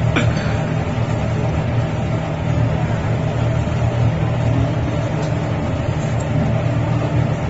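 A steady low mechanical hum with an even hiss over it, with a brief metal scrape near the start as the spatula works the griddle.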